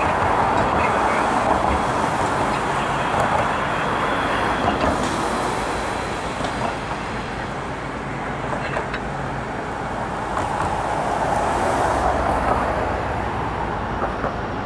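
Steady road traffic noise, the hiss of passing vehicles' tyres, swelling louder near the start and again about ten seconds in.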